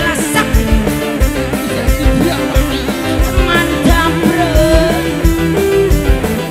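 Live band playing an instrumental passage: electric guitars, bass and keyboard over a steady drum beat.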